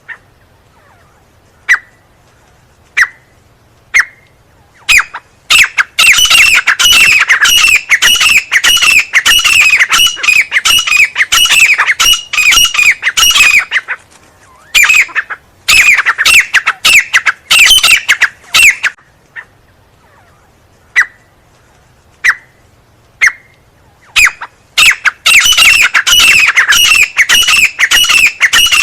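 Teetar (francolin) calling loudly. A few single notes about a second apart build into long, fast runs of repeated ringing calls, and the pattern comes round twice.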